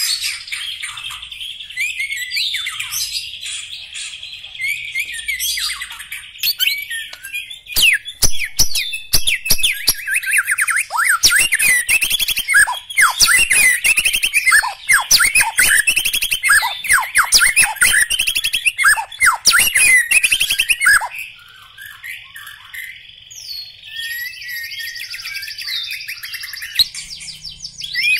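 White-rumped shama (murai batu, black-legged type) singing a long, varied song of whistled, sweeping notes. It warbles steadily at first, then bursts into a loud, rapid, varied stretch of song about eight seconds in. That stretch stops suddenly about twenty-one seconds in, and softer, higher phrases follow.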